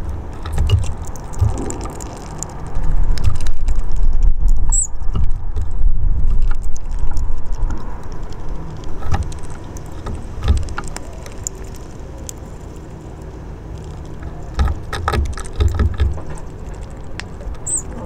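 An uneven low rumble that swells and fades, with scattered sharp clicks and taps from hawfinches feeding at a wooden bird table, and a brief high chirp twice.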